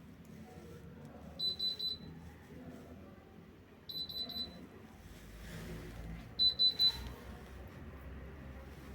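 Electrolux washing machine's control panel sounding its error alarm: three groups of three short high beeps, about two and a half seconds apart, the signal of the E10 error code.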